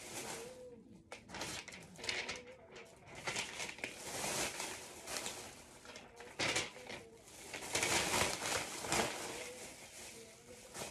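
Paper and a plastic trash bag rustling and crinkling in irregular bursts as papers are gathered up and bagged, loudest about eight seconds in.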